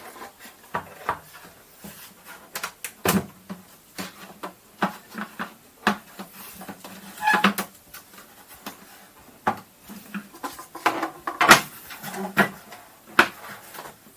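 Irregular plastic clicks, taps and light knocks as accessory parts from a CSM Typhoon transformation belt set are handled and pulled apart, with brief rustling clusters around the middle and near the end.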